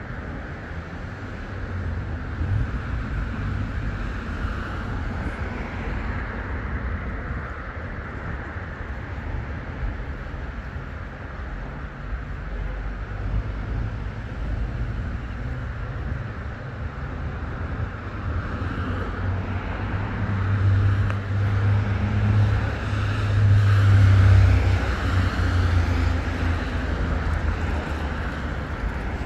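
Road vehicle noise: a steady low rumble, growing louder with a deeper engine hum about two-thirds of the way through, then easing off.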